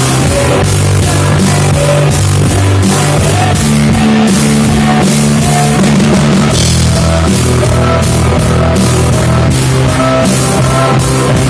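A rock band playing live, loud and steady: distorted electric guitar, bass guitar and a drum kit keeping a driving beat.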